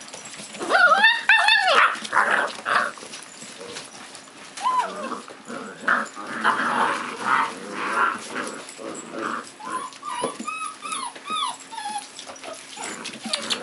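Puppies wrestling in play: two loud high yelps about a second in, then rough growling and scuffling, and a run of short yips and whines near the end.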